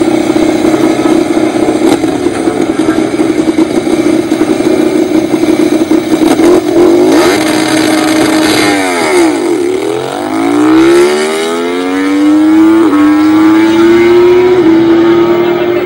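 Ducati MotoGP racing motorcycle's V4 engine running steadily with the bike standing, then pulling away: about nine seconds in the engine note dips and then climbs steadily as it accelerates off.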